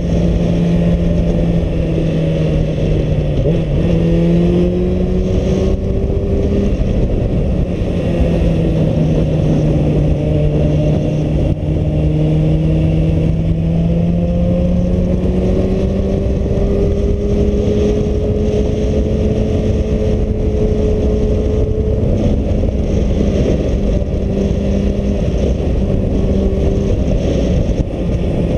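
Suzuki Bandit's inline-four engine pulling steadily on the open road, its note slowly falling and rising with the throttle through the bends, under heavy wind buffeting on the helmet-less action-camera microphone.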